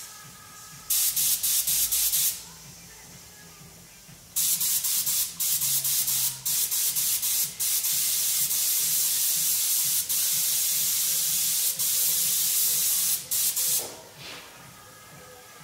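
Compressed-air paint spray gun hissing in trigger pulls: one short burst of about a second and a half, then a long run of about nine seconds broken by a few brief releases.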